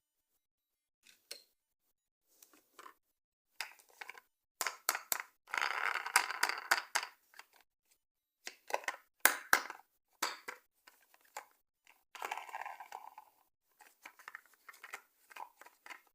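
Toy packaging being handled and opened: crinkling and tearing in short stretches, the longest about halfway through, mixed with sharp clicks and taps.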